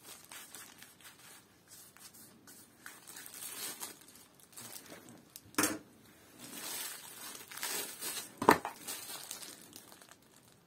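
Plastic wrapping crinkling and a fabric knife sheath rustling as a plastic-wrapped bowie knife is handled and drawn out of the sheath. Two sharp knocks come about halfway through and again near the end, the second the loudest.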